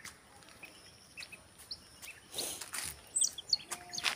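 Young chicks peeping: scattered short, high chirps that come thicker towards the end, with a brief rustle a little over halfway through.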